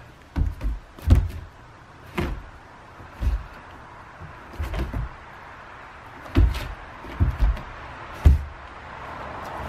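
Irregular hollow thumps, a dozen or so, of Volga wolfhounds' paws stamping and shifting on a plywood doghouse roof as two of them play-wrestle on it.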